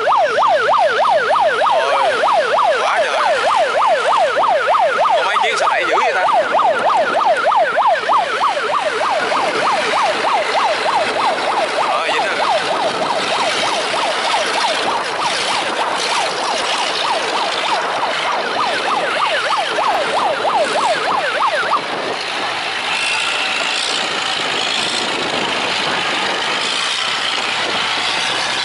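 Electronic siren from a horn loudspeaker, warbling fast up and down about four times a second. It grows fainter after about eight seconds and cuts off about three-quarters of the way through, leaving the steady noise of boat engines and churning water.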